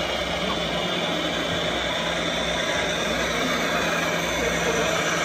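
Radio-controlled semi truck driving slowly, with a steady low engine-like hum under the hall's even background noise.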